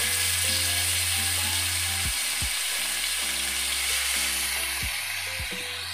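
Marinated chicken pieces sizzling in hot refined oil on a flat tawa as they are laid down and pressed flat by hand; a steady loud sizzle that eases slightly toward the end.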